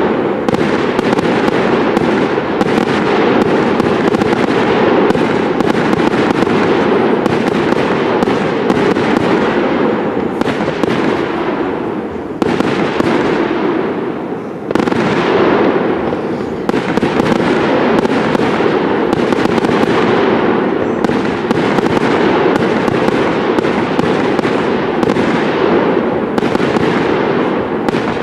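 Aerial fireworks shells bursting in rapid succession: a dense, loud, unbroken barrage of overlapping bangs and crackle. It thins briefly about twelve and fourteen seconds in, then picks up again sharply.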